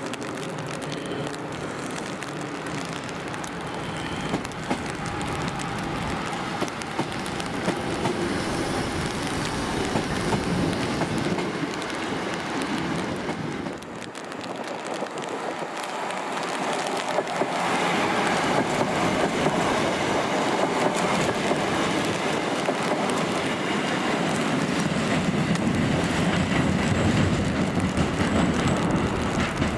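Northern class 323 electric multiple units moving through the station on wet track in heavy rain: a steady rush of wheel and rail noise with a few clicks over the joints. Briefly quieter about halfway through, then louder as a second unit runs in close.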